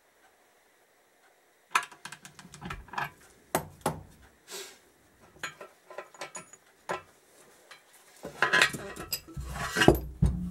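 Metal clinks, scrapes and knocks as a threaded-rod bearing press is taken off a motorcycle swingarm's pivot after pressing in a new bearing: steel nuts, square spacers and the rod handled and pulled free. The clatter starts about two seconds in, with a denser run of heavier knocks near the end as the aluminium swingarm is moved about on the bench.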